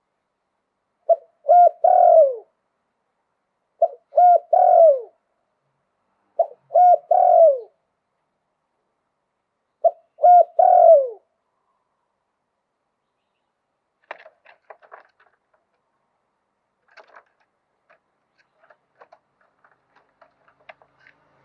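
Spotted dove cooing: four phrases about two and a half seconds apart, each a couple of short notes and then a longer, falling coo. Faint scattered clicks follow after a pause near the end.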